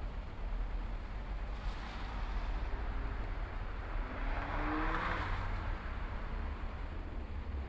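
Steady low rumble and hiss, with a passing motor vehicle swelling and fading about four to five and a half seconds in, its engine tone rising as it goes by.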